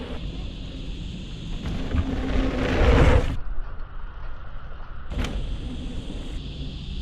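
Wind buffeting the microphone of a camera carried on a moving mountain bike, with the rumble of tyres rolling over a hard-packed dirt jump track. The rush swells up to about three seconds in. The hiss then cuts off abruptly and comes back about a second and a half later.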